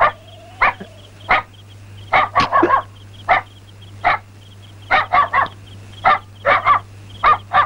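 A dog barking repeatedly at night, with short barks coming singly and in quick runs of two or three.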